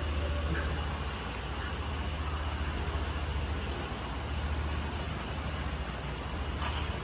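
Steady low rumble with a faint hiss of background noise, without speech.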